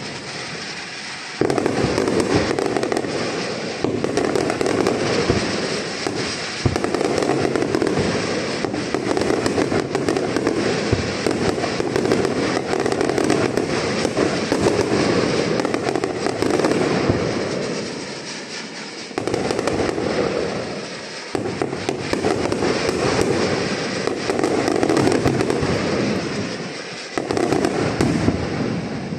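Aerial fireworks display: a dense, nearly continuous barrage of shell bursts and bangs with crackling, easing briefly a couple of times in the second half before picking up again.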